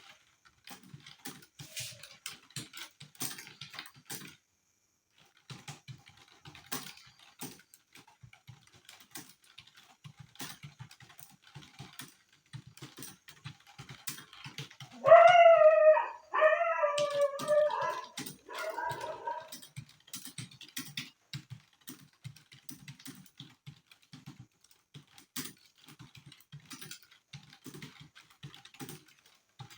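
Fast, continuous typing on a computer keyboard, with a brief pause about four seconds in. About halfway through, a loud high-pitched whining cry sounds three times in quick succession over the typing.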